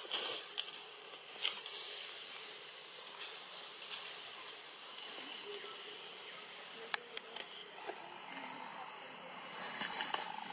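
Faint outdoor ambience: a steady high-pitched hiss, like insects in the trees, with scattered small clicks and rustles.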